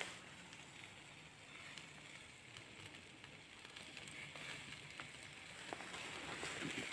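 Meat sizzling in wire grill baskets over hot charcoal: a faint steady hiss with a few small crackles, growing a little louder near the end.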